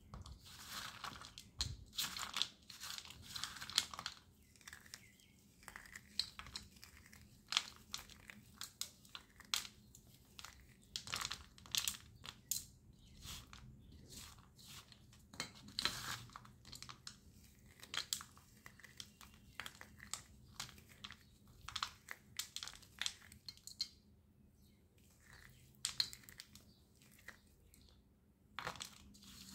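Broken slate pencil pieces clicking, crunching and scraping against each other and a steel plate as a hand sorts and stirs through them, in irregular runs of small clicks with a brief pause about five seconds before the end.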